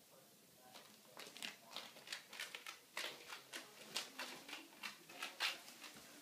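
A prairie dog scrabbling through a clear, ribbed plastic tunnel: its claws scratch and the ridged tube rustles in quick, irregular scratches, several a second, starting about a second in.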